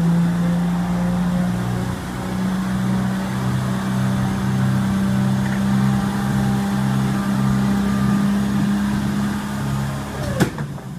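Petrol engine of an eight-wheeled amphibious ATV running at a steady, raised speed as the vehicle drives slowly. Near the end there is a sharp click and the engine note falls away.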